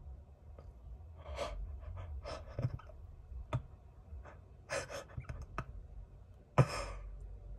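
A person's short breathy exhales, several in a row, the last one near the end the loudest, with a couple of faint clicks between them.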